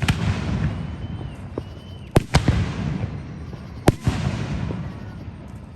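Fireworks going off: a bang at the start, two close bangs about two seconds in and another near four seconds, each followed by crackling that fades away near the end.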